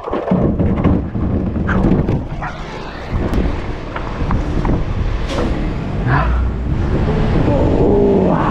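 Garbage truck running, with scattered knocks and clatter. Near the end a rising whine climbs in pitch.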